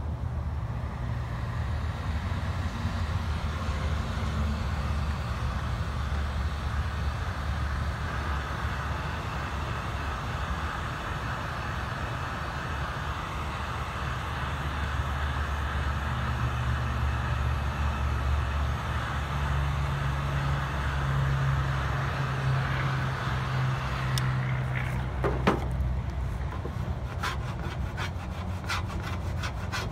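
Ryobi corded heat gun running steadily, its fan blowing hot air to soften sun-baked protective film on stainless steel. About 25 seconds in it stops with a knock, and a plastic trim tool scrapes the softened film off the steel in quick strokes, about four or five a second.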